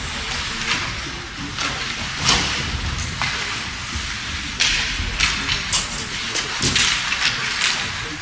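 Ice hockey play: a run of short skate scrapes on the ice mixed with sharp stick and puck knocks, coming thickest in the second half.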